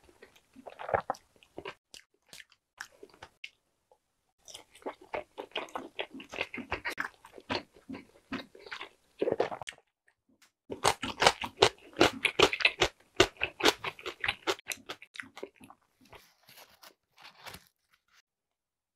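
Close-miked eating sounds: chewing with runs of wet crunches, broken by short pauses. The loudest, densest crunching comes a little past halfway, as a slice of pickled cucumber is bitten and chewed.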